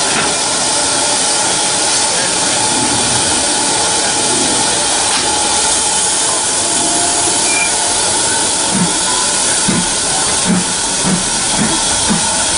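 Steam locomotive 5521, a GWR tank engine in London Transport L.150 livery, hissing steam steadily as it moves slowly along the platform. From about two-thirds of the way in, a soft regular beat joins the hiss at roughly two a second, quickening slightly.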